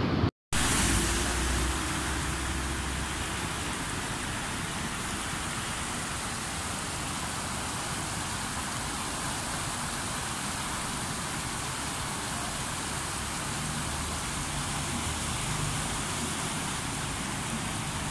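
Steady rushing of fast-flowing muddy floodwater, an even roar with no break, starting just after a short gap near the beginning.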